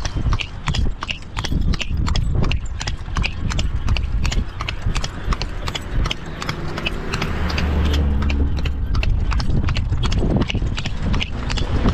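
A carriage horse trotting, its hooves striking the ground in a quick, even clip-clop of about three to four beats a second. A low rumble swells under the hoofbeats in the middle and fades again.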